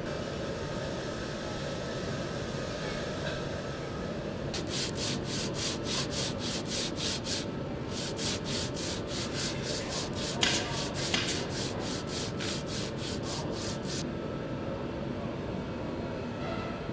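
Hand sanding of a wooden part with blue abrasive paper. Quick back-and-forth strokes come about four a second, in two runs starting a few seconds in and stopping a few seconds before the end, over a steady background hum.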